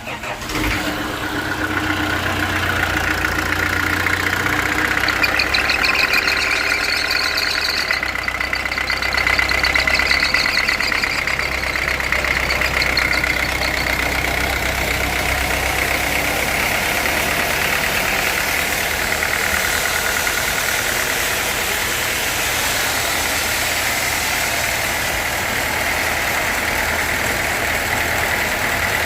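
Sawmill machinery running steadily: an engine with a high whine over it, building up in the first second or two.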